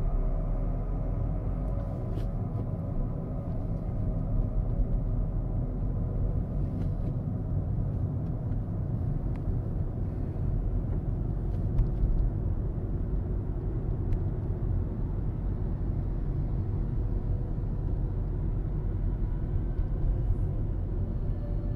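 Car driving along a town street, heard from inside the cabin: a steady low rumble of engine and tyre noise.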